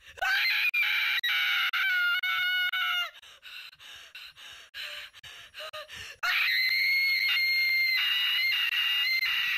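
A young woman screaming: two long, high-pitched screams of about three seconds each, with short gasping breaths between them.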